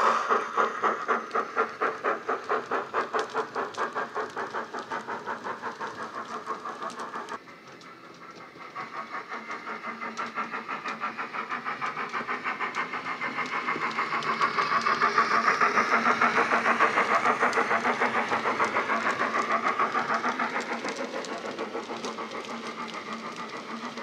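Digital sound decoder playing a BR Standard 9F steam locomotive's exhaust through the model's tender and chimney speakers: rapid, regular chuffs at several beats a second. The level drops suddenly about seven seconds in, then builds again as the train draws nearer.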